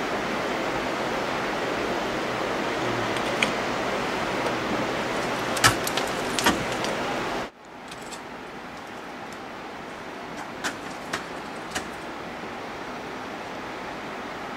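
Ice axe picks and crampon points striking the ice of a frozen waterfall, about half a dozen short sharp knocks, over a steady hiss that drops suddenly about halfway through.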